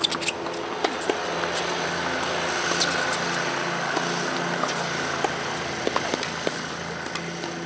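Steady drone of an engine running, with sharp pops of tennis balls struck by rackets in a rally.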